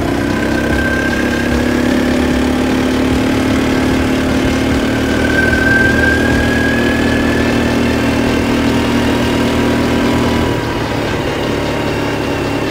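Engine of a Vento ATV (quad bike) running steadily while it is ridden along a dirt road. The engine note changes and gets slightly quieter about ten seconds in.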